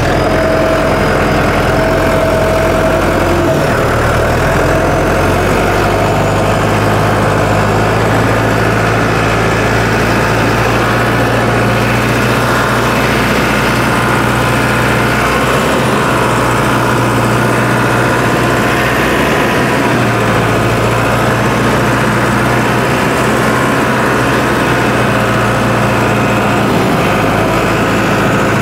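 John Deere four-wheel-drive tractor's diesel engine running steadily as the tractor drives in second gear, its note shifting about three and a half seconds in.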